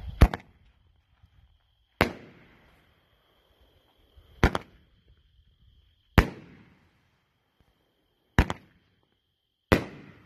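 Best of Breed 'Raccoon' 500 g fireworks cake firing its shots: six loud bangs about two seconds apart, a couple of them doubled, each trailing off in an echo.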